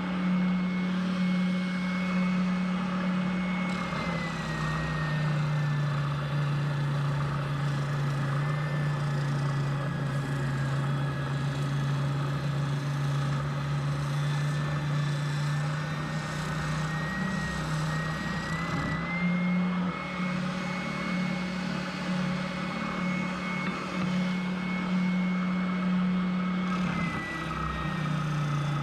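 Electric router motor running and cutting, a steady hum that drops in pitch for long stretches as it comes under load and rises again when the load eases: down about four seconds in, back up near the two-thirds mark, and down again near the end.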